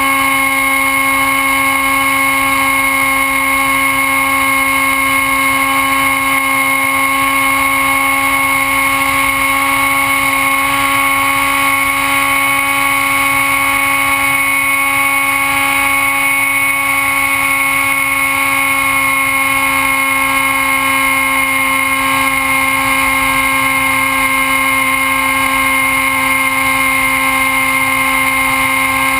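Motor and propeller of a MiniXE RC flying wing running at steady cruising throttle in flight, heard from the camera on the airframe: a loud, even whine holding one pitch, over low wind rush.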